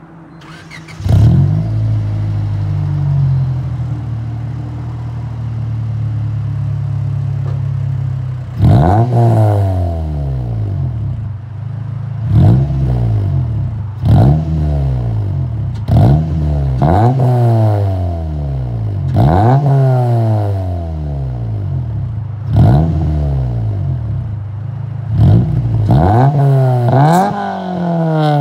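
1999 Honda Civic Si's B16A2 1.6-litre VTEC four-cylinder, breathing through an aftermarket Spec D cat-back exhaust and a cold air intake, starts about a second in and idles steadily. From about eight seconds in it is free-revved in a string of quick blips, each one rising sharply and dropping straight back to idle.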